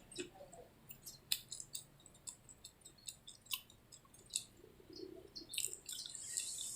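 A person chewing food close to the microphone: many short, wet mouth clicks and smacks, irregular, several a second.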